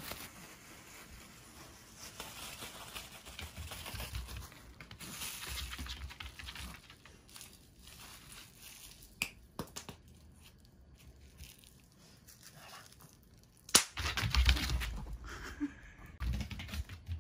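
Plastic bubble wrap crinkling and rustling in a hand, with a few sharp pops of its bubbles; the loudest pop comes about 14 seconds in and is followed by more crumpling.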